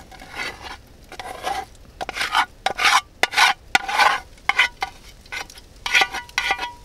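A slotted spatula scraping fried onion and carrot out of a metal frying pan into a pot, in a run of irregular scrapes. Near the end come a few sharper strokes with a ringing metallic clink.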